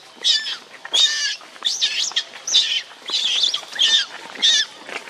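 Baby macaque screaming in distress: about eight short, shrill calls in quick succession, each a sweeping squeal, roughly two a second.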